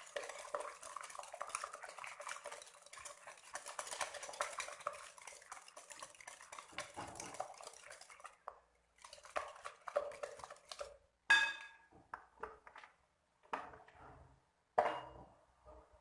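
Eggs and sugar being beaten by hand with a whisk in a bowl: a fast, continuous run of wire clicking and scraping against the bowl for about eight seconds, then a few separate taps and scrapes. They are beaten only briefly, just until the sugar blends in.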